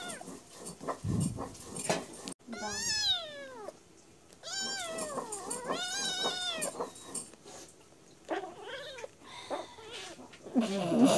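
Kittens mewing during a play fight: a series of drawn-out, high-pitched mews that rise and fall, the loudest one near the end.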